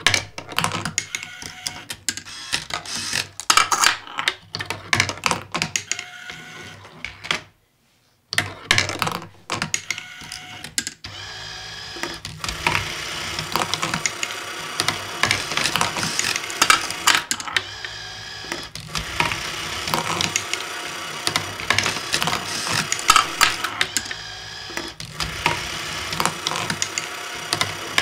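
Homemade marble machine built from junk electronics, including CD-ROM drive lifters and a receipt printer mechanism, running: steel marbles and small mechanisms clicking and clattering. It breaks off briefly about seven and a half seconds in. From about eleven seconds the clatter turns denser and steadier, with a steady motor whine under it.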